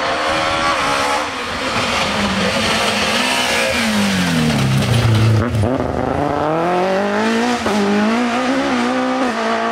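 BMW 318ti Compact rally car's four-cylinder engine driven hard past at close range. Its note falls steadily to a low point about five and a half seconds in as the car comes through the bend, then climbs again as it accelerates away, with a gear change near the end.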